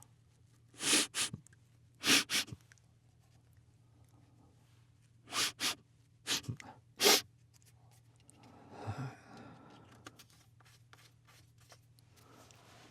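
A man sniffing Chhinkni, a Nepali herbal sneezing powder, up his nose in sharp sniffs, mostly in quick pairs. After them comes a softer breath and a few faint clicks.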